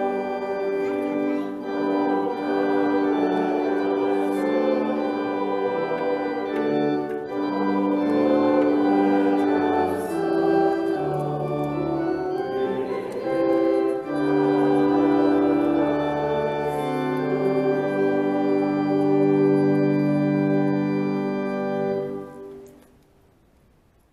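Church organ playing a hymn in sustained chords over held pedal bass notes, ending on a final chord that cuts off about two seconds before the end.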